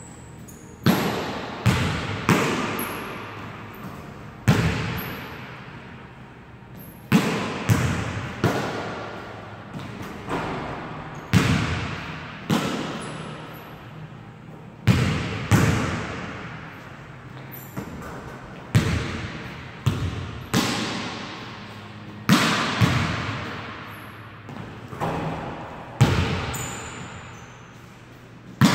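Basketball bouncing on a hardwood court, a sharp thud every second or two, each one echoing on through the gym.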